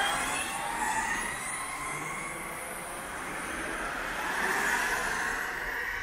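Electric skateboard hub motors whining, several tones sliding up and down in pitch as the speed changes, over a steady rushing noise of wheels and wind.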